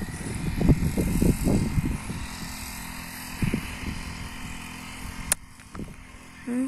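Steady drone of a small engine-driven crop sprayer running at a distance. Irregular bumps and rustling over the first two seconds are loudest, and a single sharp click comes about five seconds in.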